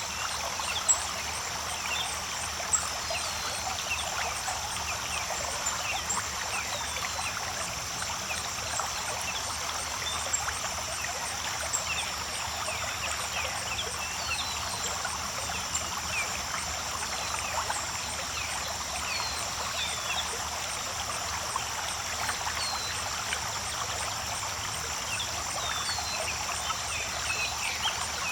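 Creek water running and trickling in a steady babble, with short high chirps scattered through it.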